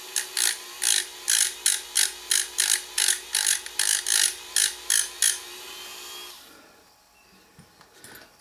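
Hand file scraping back and forth over the soldered end of a throttle cable, smoothing the top: about sixteen quick strokes, roughly three a second, that stop about five seconds in. A faint steady hum runs underneath and stops about a second later.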